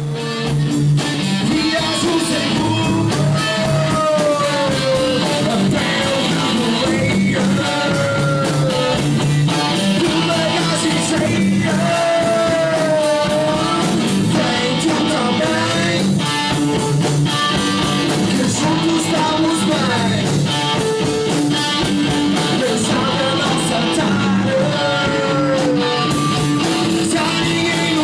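A live rock band playing: a male singer on a handheld microphone over electric guitar, bass guitar and drums.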